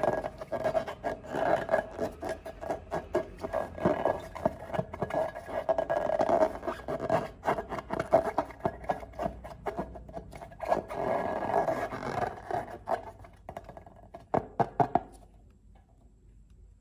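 Slime being squeezed and worked by hand, a dense run of sticky crackles and clicks that stops about 15 seconds in.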